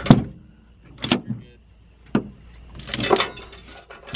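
Metallic clacks of a belt-fed Browning M1919 machine gun's action being worked by hand: three sharp clacks about a second apart, then a short rattle of metal about three seconds in. The gun is having feeding problems.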